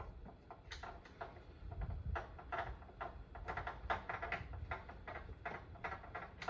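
A run of light, irregular clicks and taps, several a second and busier in the second half, over a low rumble: handling noise from small hard parts being moved or adjusted by hand.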